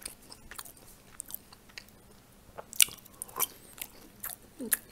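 A person chewing pan-fried pelmeni with the mouth close to the microphone: wet chewing and irregular sharp mouth clicks, the loudest a little under three seconds in.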